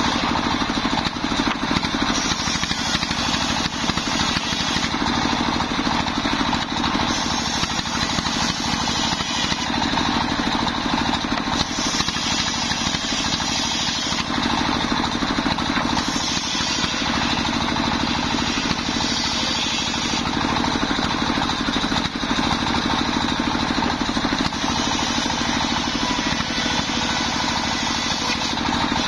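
Stationary diesel engine running steadily, belt-driving a large circular saw that rips a waru wood plank, the high hiss of the blade cutting rising and easing in stretches of a second or two.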